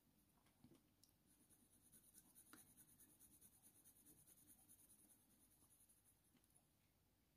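Faint, light strokes of a Faber-Castell Polychromos colour pencil on hot-press watercolour paper. They come in a quick run of about four to five small strokes a second, from about two seconds in until about five seconds in. Otherwise near silence.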